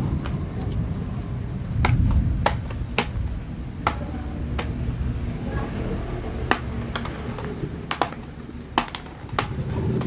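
Sharp plastic clicks and snaps, a dozen or so at uneven intervals, as the clips of a Lenovo V15 laptop's bottom cover are pried loose, over a low rumble of handling noise.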